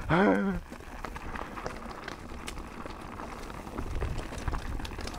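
Mountain bike rolling fast down a rocky dirt trail: tyres crunching over loose rock and dirt, with many small clicks and rattles from the bike. A brief shout in the first half second.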